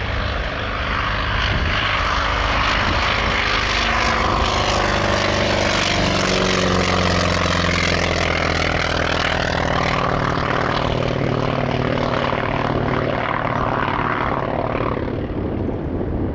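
North American T-28 Trojan's radial engine and propeller running in a pass overhead, the engine note dropping in pitch as it goes by.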